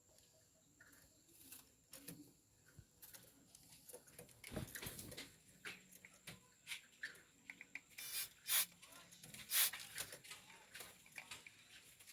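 Caught small birds rustling and scratching about, with a few faint short chirps; the loudest rustles come about eight and nine and a half seconds in.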